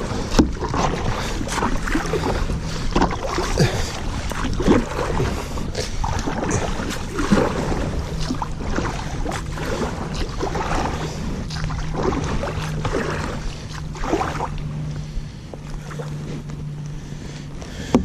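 Canoe paddle strokes dipping and splashing in a small river, a stroke about every second, fewer toward the end. A steady low hum joins about eight seconds in.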